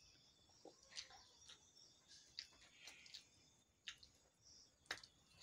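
Quiet eating sounds of egg curry and rice being mixed and eaten by hand: a few soft, wet mouth clicks and smacks, roughly a second apart, the loudest near the end, over near silence.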